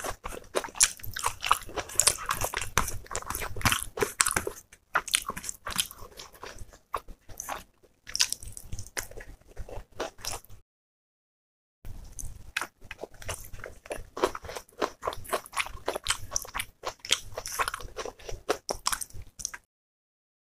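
A person chewing and crunching food close to the microphone, in quick irregular crackles and clicks. It cuts to silence for about a second just before halfway, then resumes and cuts out again near the end.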